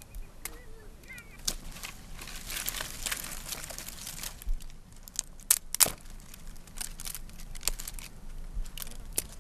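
Dry brush and twigs rustling and crackling as they are grabbed and pulled out of low scrub by hand, with sharp snaps of dry wood, the loudest two a little past halfway.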